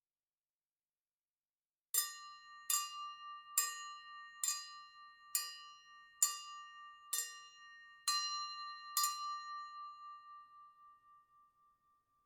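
A piece of silverware tapped against a drinking glass to call for a toast: nine clinks about a second apart, starting about two seconds in, each leaving a clear ringing tone that fades out a few seconds after the last tap.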